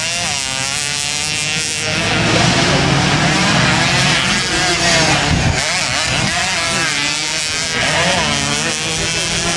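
Motocross dirt bike engines racing over jumps, revving up and dropping off again and again as the throttle is opened and closed.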